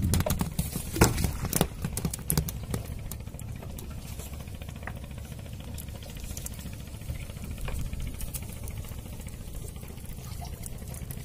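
Live hilsa flapping against a wooden boat deck, several sharp slaps and knocks in the first three seconds, over a steady low rumble.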